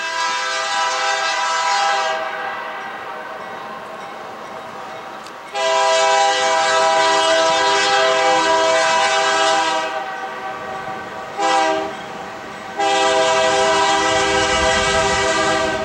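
BNSF diesel locomotive's multi-chime air horn sounding four blasts: long, long, short, long, the grade-crossing signal, with echo off the surrounding hills after the first.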